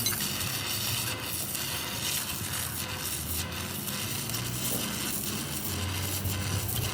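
A steady, even hiss, like air or spray rushing out, with a faint low hum underneath.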